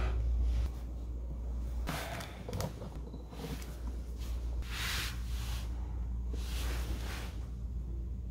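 A few soft rustles, as towels and bedding are handled, over a low steady hum.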